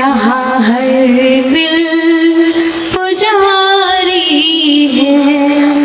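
A woman singing a Hindi poem into a microphone in a melodious voice, holding long notes with a wavering pitch. She pauses briefly for breath about one and a half and three seconds in.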